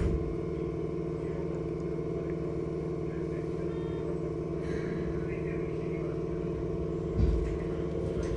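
Keikyu 1500 series commuter car standing with its doors just closed: a door-closing thud at the start, then the car's steady onboard equipment hum with a few fixed low tones, and a low thump about seven seconds in.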